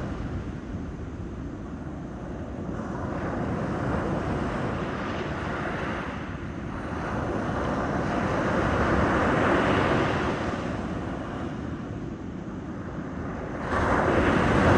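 Ocean waves breaking and washing on the shore, the surf swelling and fading every few seconds, with a louder wave crashing in near the end.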